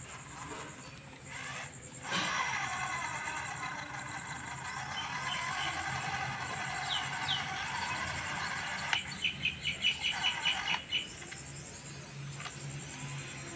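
Small birds chirping, with a quick run of about eight sharp chirps about nine seconds in, over a steady background hum.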